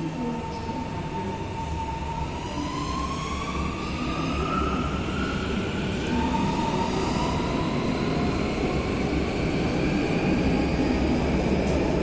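North-East Line C851E metro train's traction motors whining as the train pulls away and accelerates, the whine rising in pitch in steps. Underneath is a low rumble that grows louder.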